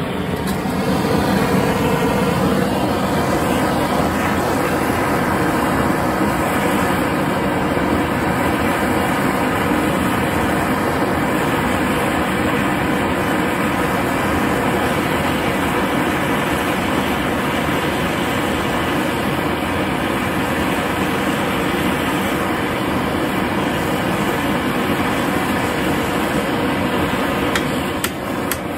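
Hand-held propane torch burning steadily, its flame heating an iron nail at the anvil's foot toward red hot. A few light metallic knocks come near the end.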